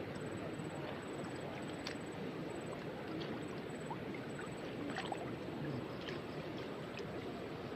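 Steady rush of flowing water at a waterfall, with a few faint clicks.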